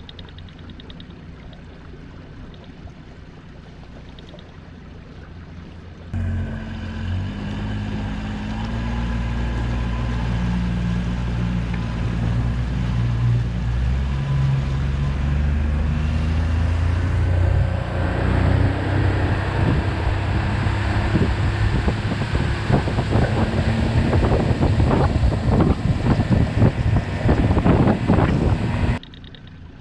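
Tiller outboard motor running the boat at speed. After a quieter low hum, the engine comes in loud about six seconds in, its pitch stepping up as it speeds up. From about two-thirds of the way in, wind on the microphone and water noise from the hull and wake join it, with a rough, crackling edge.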